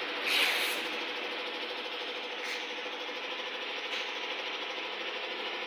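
Handheld heat gun running steadily, its fan blowing with a light motor hum while it heats new tint film on a car's rear window. A short, louder hiss comes about half a second in.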